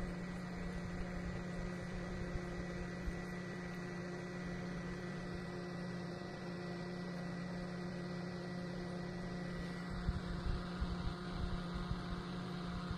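Small portable desk fans running: a steady electric motor hum with a faint high whine.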